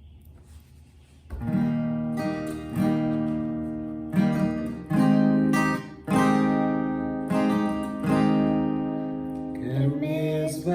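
Acoustic guitar starting a slow song with strummed chords after a moment of quiet; a singing voice comes in near the end.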